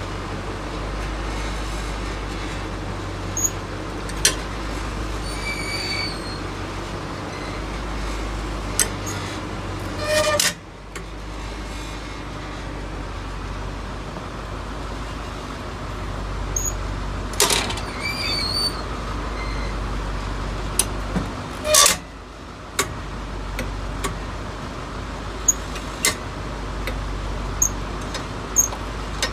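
Clicks and clunks from a bus's manual door lever and its metal linkage. The louder knocks come about ten, seventeen and twenty-two seconds in, over a steady low rumble.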